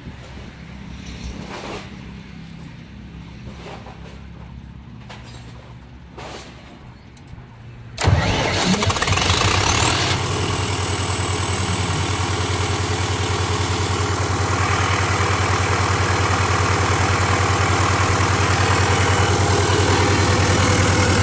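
Perkins four-cylinder turbo diesel generator engine started from its control panel, bursting into life about eight seconds in and then running steadily. A high-pitched whine rises over the first couple of seconds of running and then holds steady. Before the start there is only a low hum and a few faint clicks.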